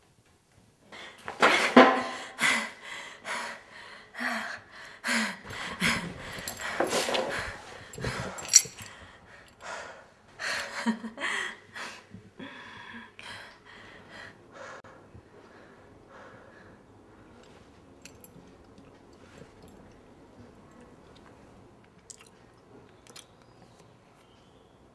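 A man chewing and eating noisily, with wet mouth sounds and breaths. The sounds are loud and irregular for the first ten seconds or so, then become quiet, scattered chewing.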